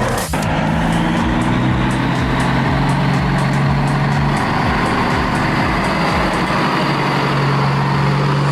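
A heavy construction vehicle's engine running steadily with a low, even drone. There is a short falling swish just after the start.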